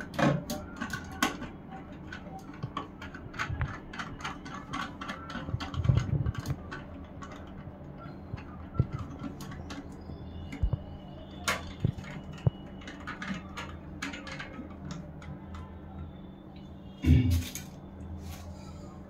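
Scattered light clicks and taps of plastic parts being handled at a Hindware concealed cistern's flush-plate frame and push rods, over a steady low hum. Two louder dull knocks come about six seconds in and near the end.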